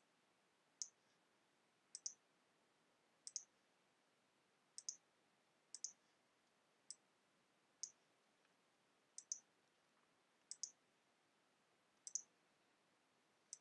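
Computer mouse clicking, about a dozen sharp ticks spaced roughly a second apart, several of them in quick pairs.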